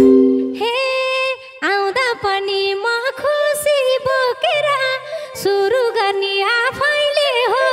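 A woman singing a Nepali lok dohori verse solo, unaccompanied, her voice bending and gliding between notes. The band's accompaniment stops about half a second in, leaving her voice alone.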